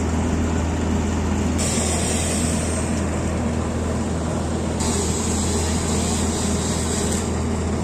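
Sawdust machine (wood crusher) running with a steady low hum. A harsher high hiss joins it twice, each time for about two seconds, as wood is ground into sawdust.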